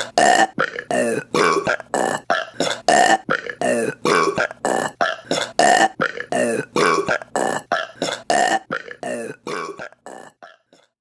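A rapid string of short, loud burps by women, one after another at about two or three a second, each with a voiced, gliding pitch; they grow quieter and die away near the end.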